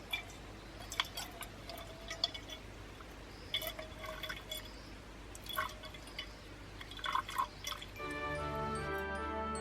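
Water dripping and trickling in irregular small drops. Background music comes in about eight seconds in.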